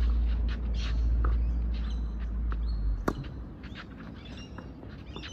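Tennis racquets striking the ball during a rally: a sharp hit at the very start and another about three seconds in. Birds chirp in the background, and a low wind rumble on the microphone eases off about three seconds in.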